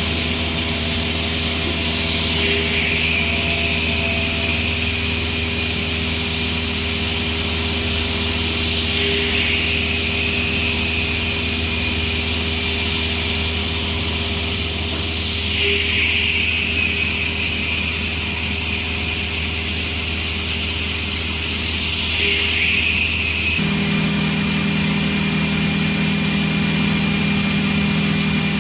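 Milling machine running, its cutter machining a steel workpiece with a steady, loud noise and a fixed high tone. The sound swells and dips about every six to seven seconds. About 23 seconds in, the low hum changes abruptly.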